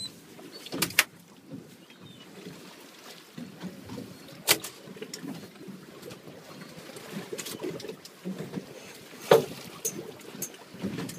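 Water slapping against the hull of a small fishing boat rocking on choppy sea, with a few sharp knocks, the loudest about nine seconds in.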